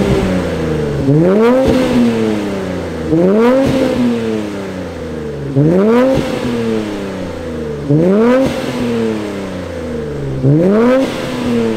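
Infiniti Q50's VR30DDTT twin-turbo V6 blipped at a standstill through a cat-back exhaust with 10-inch sport mufflers and a non-resonated X-pipe. Six quick revs, one about every two and a half seconds; each climbs sharply in pitch and falls back slowly to idle.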